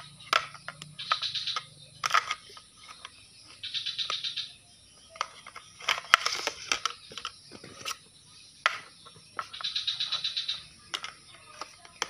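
Small plastic toy dishes clattering as a toddler handles them: sharp knocks and several short spells of quick rattling, each under a second.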